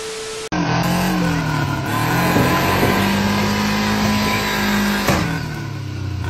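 A half-second burst of TV-static hiss with a steady tone, then a car engine revving hard under load, pulling a stuck car out of a ditch on a tow rope. The revs climb, hold steady for about three seconds, and drop off after about five seconds.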